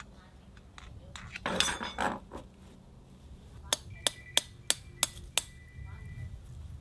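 A peg hammer striking a metal deck peg: about six sharp metallic taps in quick succession past the middle, with a ringing note hanging on after them. The peg is not going in, because the deck is very hard.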